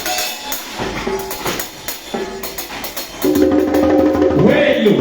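Live band playing during a sound check: scattered drum and percussion hits, then about three seconds in the band comes in louder with bass and a melody that slides up and down in pitch.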